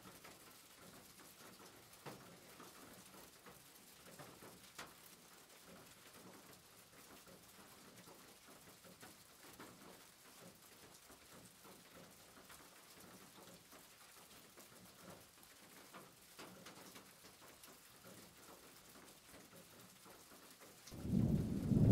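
Near silence: faint room tone with a few soft clicks. Just before the end a loud low rumble starts.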